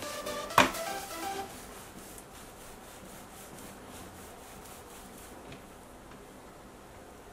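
Background music that stops about a second and a half in, with one sharp click under it about half a second in. After that, a faint soft rubbing of palms rolling a rope of cookie dough back and forth on a silicone baking mat.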